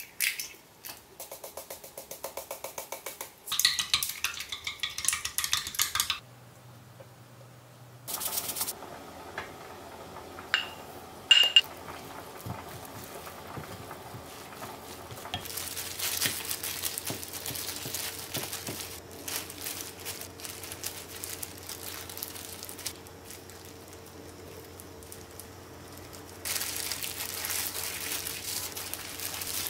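Metal kitchen utensils working against dishes and a pan: a few seconds of rapid, even strokes, a couple of sharp clinks, then a steady frying hiss over the second half.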